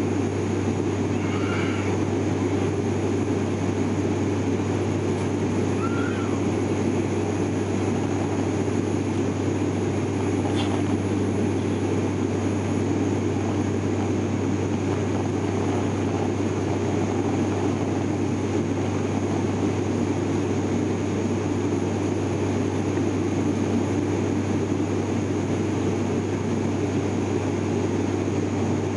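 Cabin drone of an ATR 72-600 turboprop airliner in flight: its Pratt & Whitney PW127 engines and six-blade propellers make a steady low hum over a constant rush of air noise.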